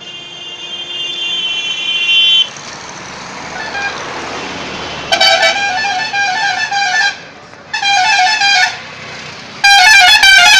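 Vehicle horns in road traffic: a steady horn for about two seconds, then a loud multi-note horn whose pitch steps up and down, sounding three times over road noise, the last blast the loudest.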